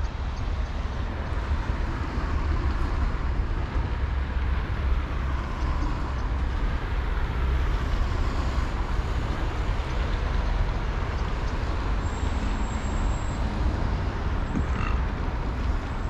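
Steady low outdoor rumble with a haze of noise over it, the kind made by wind on the microphone and distant road traffic, with one faint brief chirp near the end.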